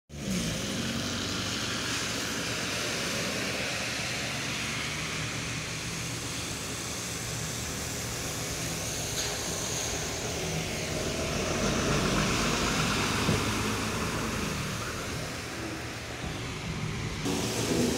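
Road traffic on a wet street: vehicles passing with the hiss of tyres on wet asphalt and engines running, swelling as one passes closer about twelve seconds in.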